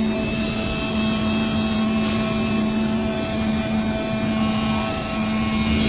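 WS-K1325 CNC router's oscillating knife cutter running as it cuts KT foam board: a steady mechanical buzz with a constant pitched drone.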